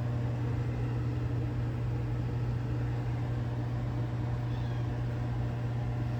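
Microwave oven running with a steady low hum, while a cat meows for attention.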